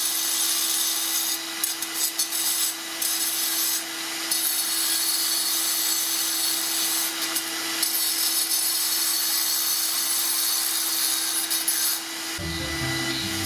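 Makita angle grinder grinding concrete: a steady motor whine under a harsh grinding hiss that dips briefly several times as the wheel eases off the surface. Music comes in about a second before the end.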